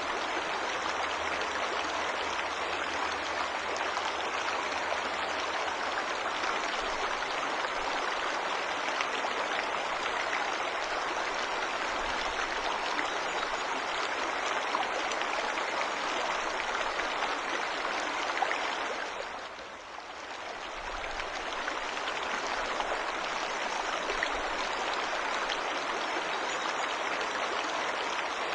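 Waterfall's rushing water, a steady even hiss of falling and running water. The level dips briefly about two-thirds of the way through, then returns.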